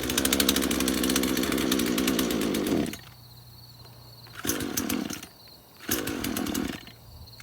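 Craftsman two-stroke chainsaw engine, just started after years of storage, running hard for about three seconds, then dropping off, followed by two shorter bursts. It is struggling to keep running, and the owner takes it to be having trouble picking up fuel.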